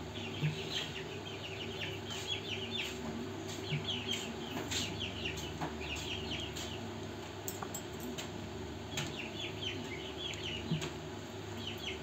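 Birds chirping in quick runs of short, high chirps, with a few sharp clicks and a steady low hum underneath.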